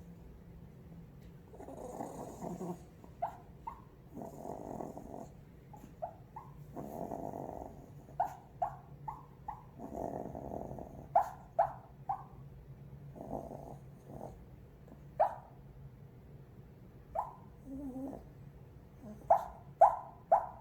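A sleeping 13-year-old Yorkshire terrier snoring in slow breaths every two to three seconds, breaking into short, high whimpers in its sleep. The whimpers come in little clusters and are loudest near the end.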